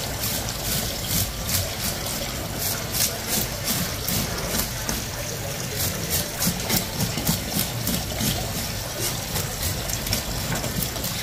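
Toothed fish scaler raking scales off a whole crimson snapper, a quick run of repeated scraping strokes a few a second, over a steady low hum.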